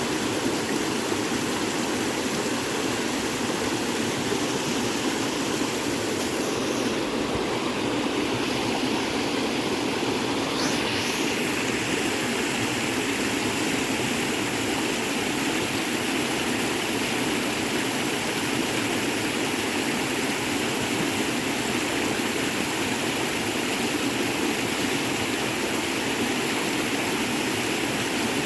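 Creek water rushing steadily after heavy rain, a constant full noise; its hiss dulls briefly between about six and ten seconds in.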